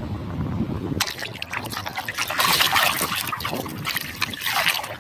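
Water trickling and splashing as muddy toy vehicles are rinsed in water, starting suddenly about a second in.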